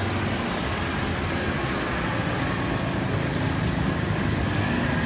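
Steady outdoor background noise with a low rumble, even in level throughout.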